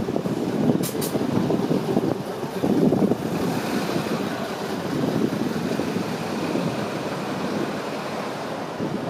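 City bus engine and road rumble heard from the front of the bus, a steady low noise. Two sharp clicks come about a second in, and a hiss joins it from about a third of the way through.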